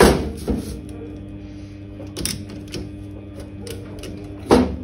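Metal clicks and knocks from the action of a Chinese underlever air rifle being handled during disassembly. A sharp knock comes at the start and another, the loudest, about four and a half seconds in, with lighter clicks between.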